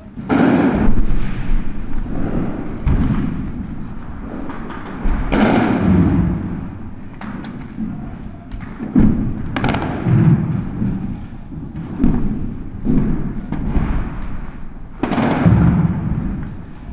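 A run of heavy thuds and bangs at irregular intervals, about a dozen in all, each trailing off in a short echo, with a dull low rumble between them.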